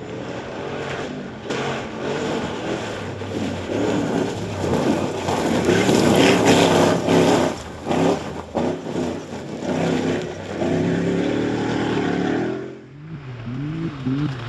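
Off-road 4x4 rally car engines revving hard through the gears as a car passes, loudest about six seconds in. After a brief drop near the end, another engine rises and falls in pitch.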